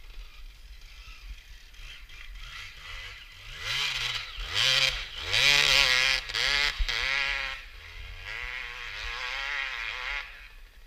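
Suzuki RMX250's two-stroke single-cylinder engine, faint at first, then revving hard in repeated rising and falling surges from about four to seven seconds in as the bike passes close, before settling to a steadier, weaker drone.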